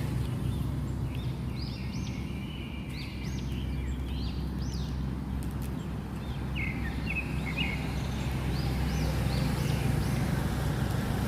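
Tugboat's diesel engine droning steadily at a low pitch, with small birds chirping in many short, high calls over it.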